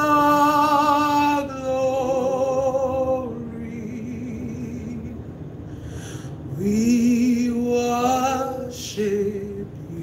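One voice slowly singing a worship chorus, holding long notes with a wavering vibrato. The notes are softer in the middle and swell again with a rising, held note near the end.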